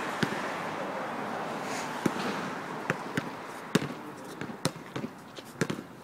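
Basketball dribbled on an outdoor asphalt court: sharp, uneven bounces, a few at first and then closer together in the second half, over a steady hiss that fades away.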